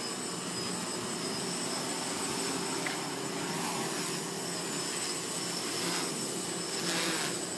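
Hexacopter's six battery-powered electric motors and propellers whirring steadily as it hovers and manoeuvres, swelling briefly about seven seconds in.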